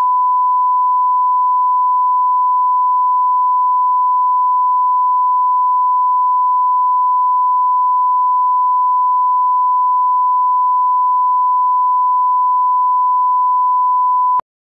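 Video line-up test tone: a single steady, loud pure tone that accompanies colour bars, cutting off suddenly near the end.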